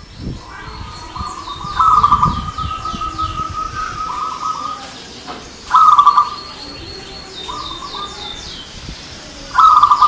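Zebra dove (perkutut) cooing in bursts of rapid, trilled notes, four times, the first running on for about three seconds. A small bird chirps in quick series of high, falling notes behind it.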